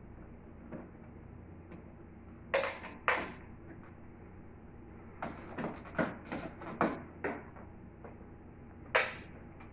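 Irregular handling noises: sharp clicks, knocks and short scrapes, in a cluster about two and a half seconds in, a busier run in the middle, and one more near the end, over a steady low hum.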